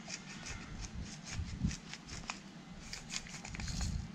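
Wooden pepper mill grinding peppercorns: a rapid, irregular run of dry clicks and crackles as the mill is twisted.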